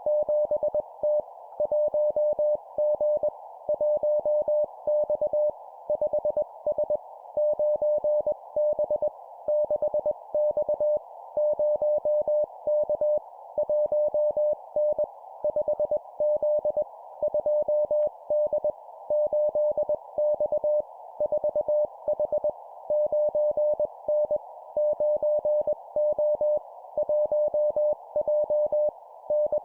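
Morse code (CW) at 20 words per minute: a single tone near 600 Hz keyed on and off in dots and dashes, sending short two-character number-and-letter groups with brief gaps between them, over a steady band of hiss.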